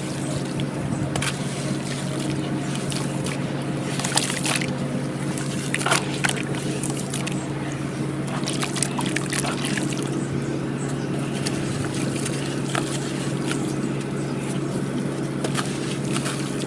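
Crumbly white cement-and-sand chunks being broken up, giving scattered crisp crackles and crunches, several close together about four to six seconds in, over a steady low hum.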